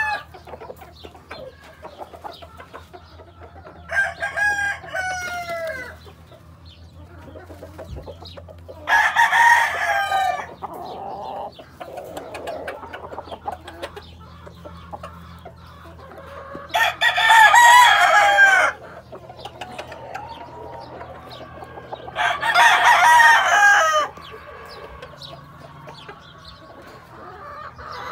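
Sweater-bloodline gamefowl roosters crowing: four separate crows, each lasting about a second and a half to two seconds, spaced several seconds apart.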